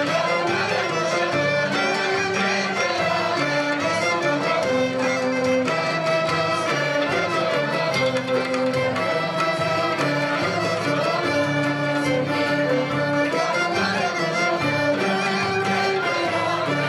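Live Turkish art music ensemble playing a folk-style tune: violins and clarinet carrying the melody over plucked ouds and a frame drum, with a steady beat.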